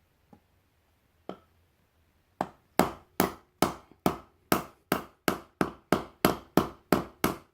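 Hammer tapping, then driving a wooden wedge into the top of a new wooden hammer handle, seating it tight in the head's eye. Two light taps, then from about two and a half seconds in a steady run of about fourteen sharp blows, close to three a second.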